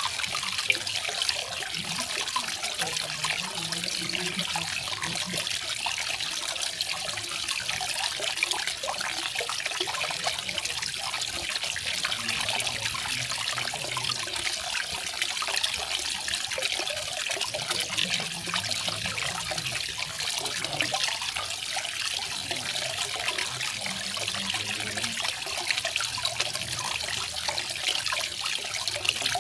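Garden waterfall: water falling and trickling in a steady, unbroken rush.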